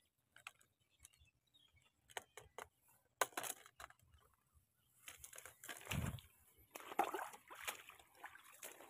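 Faint rustling of rice plants and footsteps as someone walks through a paddy field, with a few sharp clicks in the first few seconds and a dull thump about six seconds in.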